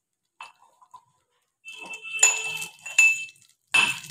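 Whole garam masala being crushed by hand: a few faint clicks, then clinking and knocking with a high ringing ping. Near the end this turns into sharp pounding strokes about two a second.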